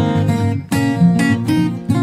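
Acoustic guitar background music: strummed and plucked chords, with a new chord struck about two-thirds of a second in and again near the end.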